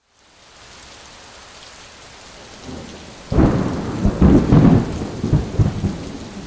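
A loud, low, drawn-out human burp, starting about three seconds in and going on in several surges, over a steady background noise.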